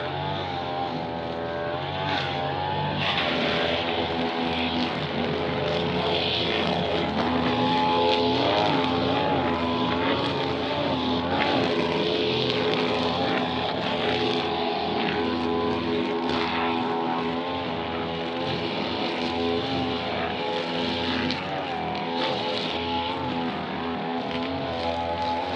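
Small two-stroke brush cutter engine running at high revs, its pitch wavering up and down as the throttle and load change.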